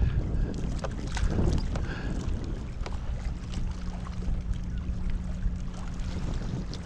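Wind rumbling on the microphone and water against a kayak, with scattered light knocks and clicks; a faint steady hum comes in about halfway through.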